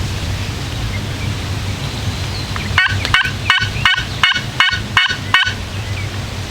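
A run of about eight turkey yelps, evenly spaced at roughly three a second, over a steady low rumble.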